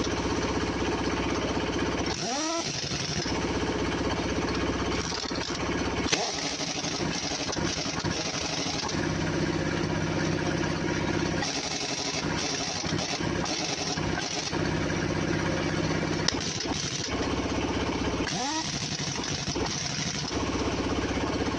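Large pneumatic impact wrench hammering on a truck's wheel nuts in several runs of two to three seconds, with short breaks in which the air motor's whine rises and falls in pitch.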